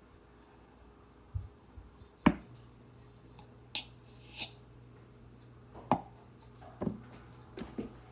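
Scattered knocks and clicks of a glass jar and a honey container being handled while honey is poured over chopped elecampane roots, the loudest knock a little over two seconds in. A low steady hum starts at that knock.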